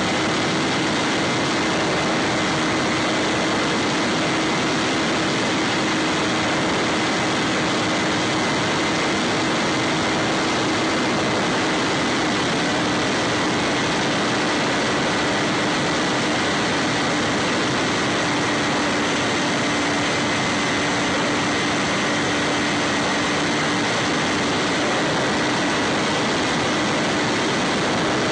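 Bix3 FPV model plane's electric pusher motor and propeller running at steady cruise, heard from the onboard camera: a steady hum over a constant rush of air.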